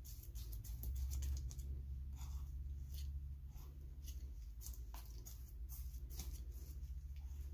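Metal palette knife mashing and stirring thick acrylic paint and chunks of frozen paint, giving irregular wet clicks and smacks, over a steady low hum.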